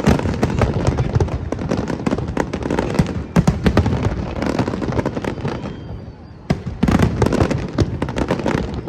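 Fireworks display: a dense, rapid barrage of bangs and crackles from aerial shells. It eases off about six seconds in, then resumes abruptly with a fresh volley.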